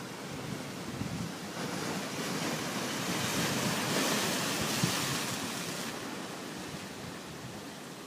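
Ocean surf breaking against a rocky shore: one wave rushing in and swelling to its loudest in the middle, then washing back and fading.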